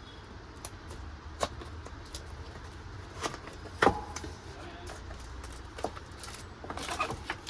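Scattered clicks and knocks of parts and packaging being handled, over a steady low hum; the loudest knock comes about four seconds in, with a quick run of clicks near the end.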